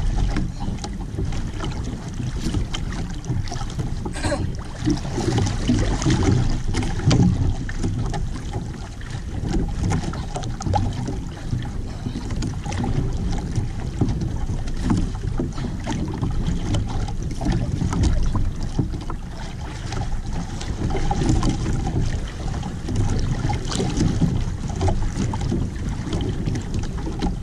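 Wind buffeting the camera's microphone, with choppy sea water slapping against a small outrigger boat's hull; a loud, uneven low rumble that rises and falls.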